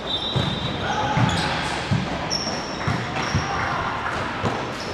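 Futsal ball being kicked and bouncing on the indoor court, about six sharp thuds echoing in the large hall, with high squeaks of shoes on the floor and players calling out.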